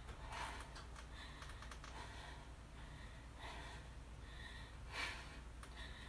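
A person breathing hard and unevenly through a held core exercise (a boat-pose hold), short forced breaths about once a second, the strongest about five seconds in, with a few faint clicks and a steady low hum.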